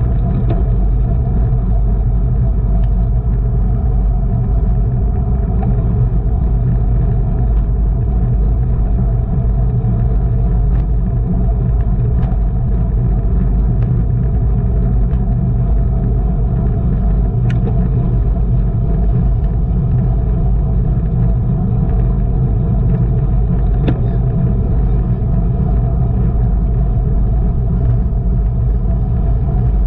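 Steady low wind rumble buffeting the microphone of a camera riding along in a bicycle race, with a few faint clicks.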